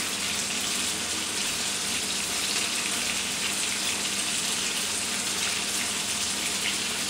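Steady kitchen hiss with an even level throughout, over a faint low hum.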